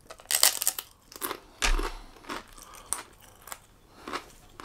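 Biting into a piece of crisp garlic and mozzarella flatbread and chewing it: a string of short, crisp crunches close to the microphone, loudest in the first couple of seconds.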